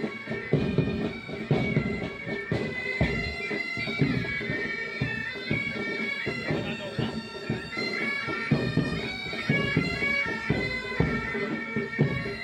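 Military pipe band playing: bagpipes sound a melody over their steady drones, with a regular beat of drums underneath.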